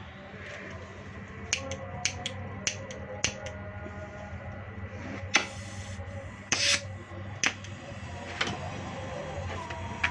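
A series of sharp clicks and taps of tools being handled, with two short hissing bursts about halfway through, over a steady low hum.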